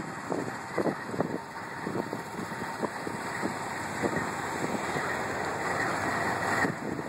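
Canadian Pacific diesel-electric freight locomotive passing close by: a steady rushing rumble with irregular knocks and wind buffeting the microphone. The higher hiss drops away abruptly near the end.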